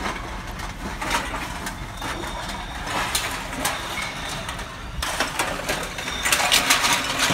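Empty drink cans and bottles clinking and clattering as they are handled, with a busier run of clinks about five seconds in, over a steady low engine hum from an idling car.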